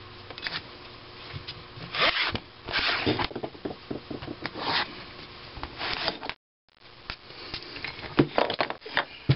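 Pencil scratching on a sheet of gasket material as it is traced around the edge of a cast-iron engine head, in several short scraping strokes with the rubbing and knocking of hand and part on the workbench. A moment of dead silence about six seconds in.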